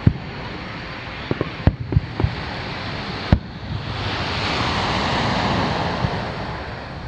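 Aerial fireworks shells bursting out over the sea: about seven sharp bangs in the first three and a half seconds. In the second half, surf swells up and falls away as a wave washes onto the beach.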